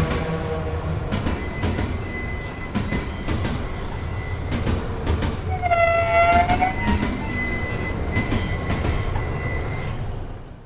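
A train running past with a steady rumble and a high, steady wheel squeal. The squeal breaks off about halfway for a short horn-like tone that dips and rises in pitch, then comes back. It fades out near the end.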